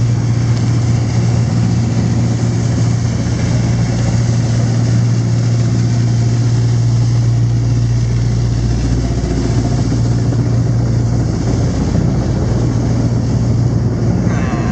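A boat's engine running steadily: a constant low drone under an even hiss of wind and water.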